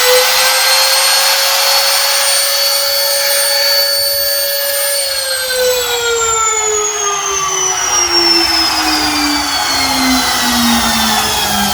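A 550 W trimmer router, mounted as a CNC spindle, running unloaded at full speed: a high steady motor whine with the rush of its cooling fan. About five seconds in, the whine begins to fall steadily in pitch as the router coasts down.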